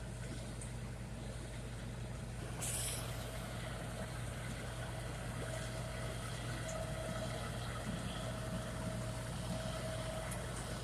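Diesel tractor engine running steadily with a low, even hum and a faint steady whine, plus a short hiss about three seconds in.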